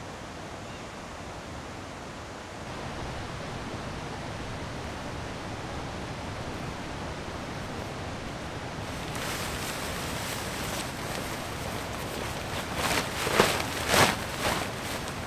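Steady rushing outdoor noise that grows a little louder about two and a half seconds in, with several brief loud rustles near the end.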